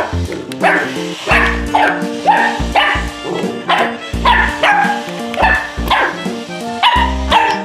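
Young English Pointer–Mini Australian Shepherd puppy yipping and barking in quick, repeated yaps, about two a second, over background music with a steady bass beat.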